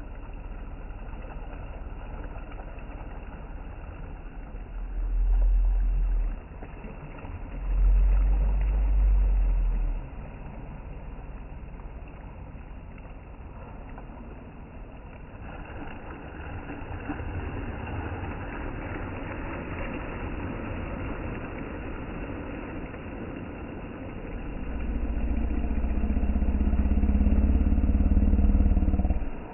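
Wind buffeting the microphone: a low rumble throughout, with stronger gusts about five seconds in, again around eight seconds in, and through the last few seconds.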